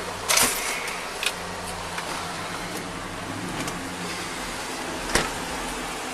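An officer gets out of a Ford patrol car. A sharp click and a clatter about half a second in are the door and gear moving. A heavy thump about five seconds in ends the steady low hum of the car around it.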